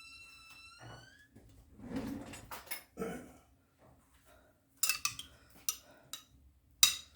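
Kitchen handling sounds from opening a jar of olives: a drawn-out squeak in the first second, a couple of soft thuds, then several sharp clicks and clinks of glass and utensils.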